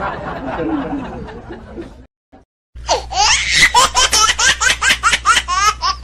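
Laughter meme sound effects: one laugh fades out over the first two seconds, and after a brief silence a new high-pitched laugh starts, rapid and pulsing at about four a second, over a steady low hum.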